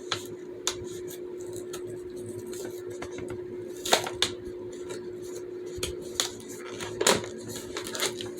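Plastic fidget toys being handled: scattered sharp clicks and knocks at irregular intervals, over a steady low hum.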